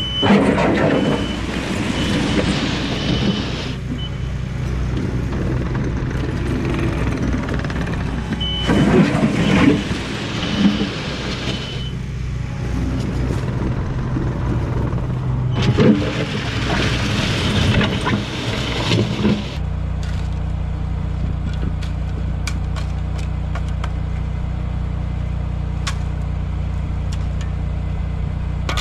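A diesel construction machine, an excavator or track loader, working: the engine runs under load with loud bursts of scraping and rock noise, and a high beeping sounds twice. From about two-thirds of the way in it settles to a steady run with only small clicks.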